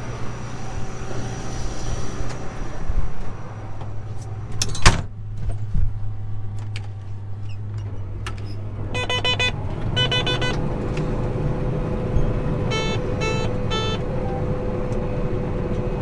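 Combine harvester cab: steady engine drone, a sharp click about five seconds in, then two sets of rapid electronic beeps from the cab controls, around nine seconds and again around thirteen. After the first beeps the machine sound grows fuller, with a steady hum.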